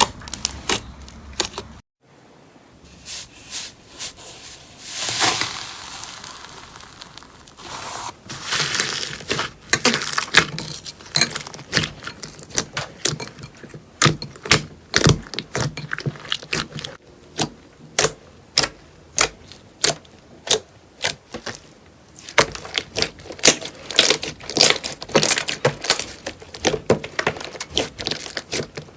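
Slime being squeezed and poked by hand, giving rapid, irregular crackling and popping clicks, with a brief pause about two seconds in.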